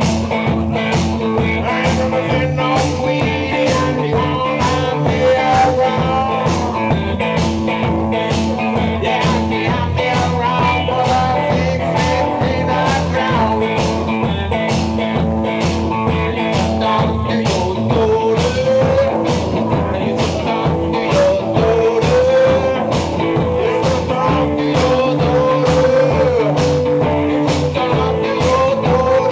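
Live blues-rock from a guitar-and-drum duo: electric guitar over a steady bass-drum beat of about two strokes a second. A wavering melody line grows stronger in the second half.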